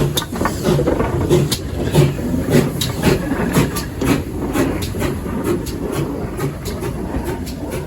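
Steam train moving slowly along the track, its wheels giving many sharp, irregular clicks and clanks over a low rumble.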